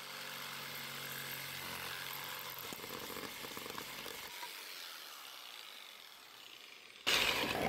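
Black & Decker corded jigsaw cutting through a paramotor propeller blade of stiff foam under an epoxy skin. The motor runs steadily, then thins and fades after about four seconds as the cut finishes. A short, louder noise comes in just before the end.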